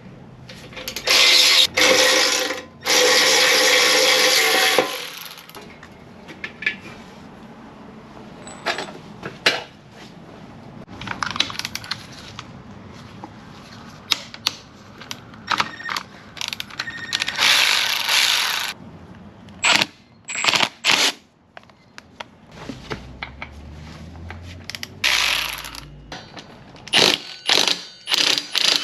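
A power tool runs in bursts, the two longest starting about a second in and lasting a few seconds together, with shorter runs later. Between the runs come sharp clicks and metal clinks of tools and parts as bolts on the motorcycle's front forks are loosened.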